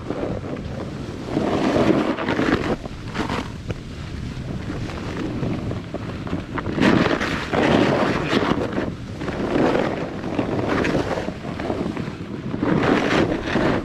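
Snowboard riding down through soft powder, its edge hissing and scraping in surges every couple of seconds as it turns. Wind buffets the microphone throughout.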